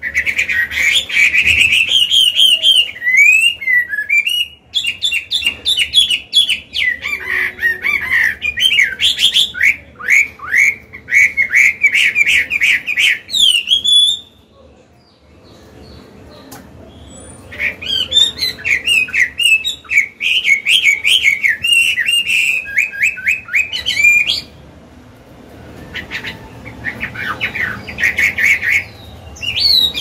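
Chinese hwamei singing: long phrases of loud, varied whistles and fast repeated trilled notes. The song breaks off about halfway through, returns, pauses again late on, then comes back softly and grows loud again at the end.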